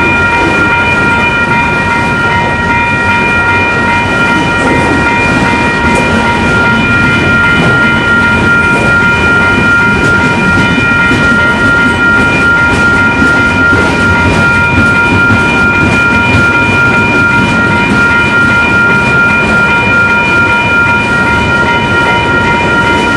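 Train running loudly past, a dense steady rumble of wheels on rail with a steady high-pitched squeal held throughout.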